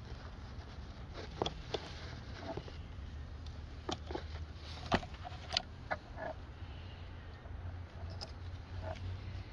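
Pliers and hand tools clicking and clinking against metal parts of an outboard motor's carburetor linkage as the carburetor is taken off, in irregular single clicks, over a low steady hum.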